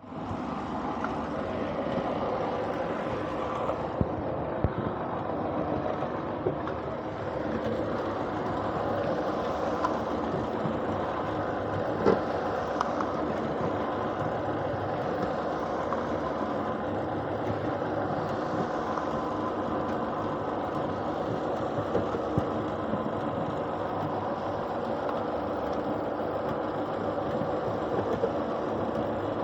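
Paving block press machine running steadily, its engine-like drone punctuated now and then by sharp knocks.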